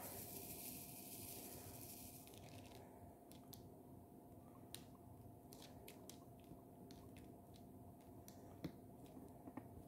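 Faint, scattered clicks and taps of a diamond-painting drill pen picking up resin drills from a plastic tray and pressing them onto the canvas, over a low steady hum. A soft hiss in the first two seconds.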